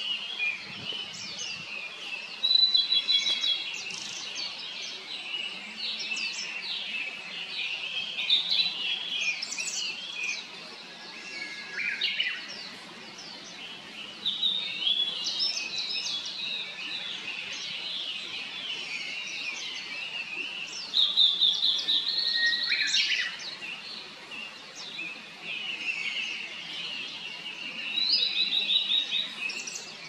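Male blue-and-white flycatcher singing: a run of clear, warbling song phrases, several of them ending in a short rapid trill, with the loudest phrases near the start, about two-thirds of the way through and near the end.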